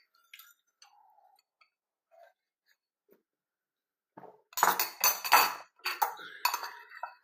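Spoon clinking and scraping against a bowl of cornflakes: a few faint ticks, then a close run of clinks starting about four seconds in.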